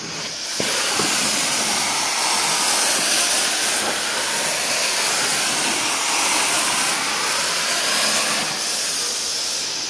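Carpet extraction wand spraying hot cleaning solution into the carpet and vacuuming it back up, heard as a loud, steady rushing hiss. The hiss starts about half a second in, just after a couple of short clicks.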